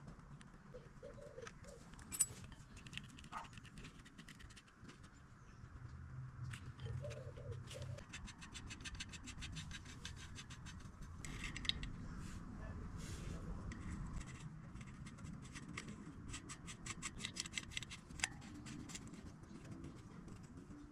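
Faint handling noises of a bicycle front wheel being fitted into the fork: scattered knocks and scrapes, with two runs of rapid, even clicking.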